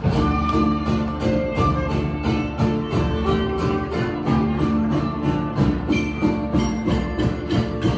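Mexican folk dance music in mariachi style, with violins and guitars over a steady beat of sharp strokes, about four a second.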